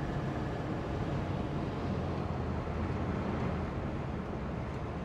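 Rover P6 3500's V8 engine running at a steady cruise with a low, even hum, heard from inside the cabin along with road and wind noise.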